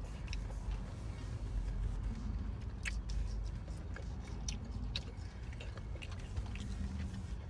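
Someone chewing peanuts from a Pepsi-and-peanuts mix: scattered short crunches and mouth clicks over a steady low rumble.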